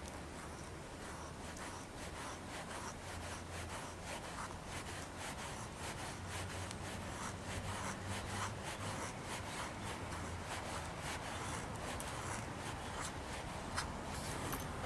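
Knife shaving wood in many short, quick scraping strokes, the strokes coming irregularly and growing a little louder toward the end.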